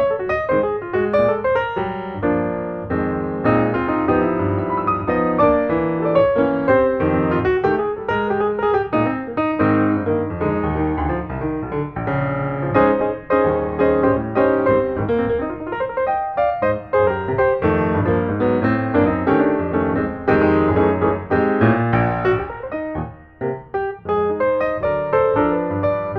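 Piano music, many quick notes played continuously.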